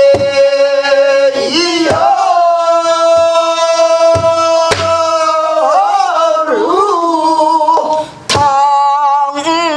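Pansori singing: long held notes that waver and bend into ornamented turns. A buk barrel drum accompanies it with about five sharp strokes spread through the passage.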